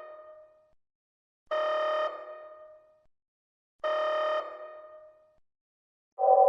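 Electronic sci-fi tone sound effect: a bright pitched tone held about half a second and then fading, sounding twice about two seconds apart. Near the end a different, louder electronic tone begins.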